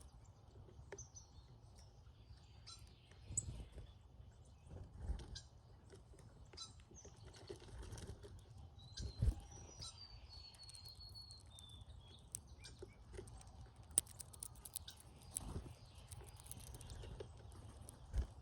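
Brown-headed cowbirds at a feeder giving thin, high whistles and squeaky calls, with one longer whistle falling in pitch near the middle. Several dull thumps are scattered among the calls.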